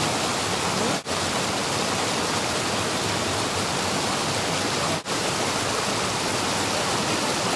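Steady rushing hiss like running water or wind, at an even level, broken by two brief dropouts where the recording is cut, about a second in and again about five seconds in.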